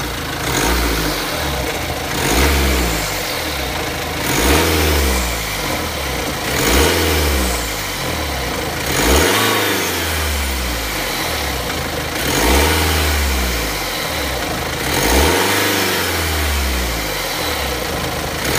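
BMW X3 F25 engine blipped repeatedly from idle: about seven short revs, each rising and falling back to idle, every two to three seconds. The timing chain is the suspected source of noise.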